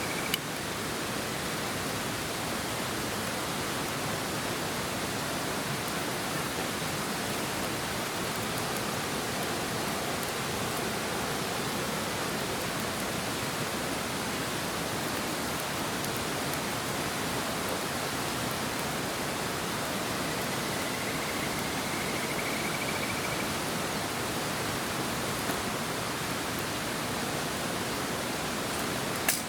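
Steady, even rushing noise that does not change, with a faint short rising whistle-like tone about two-thirds of the way through.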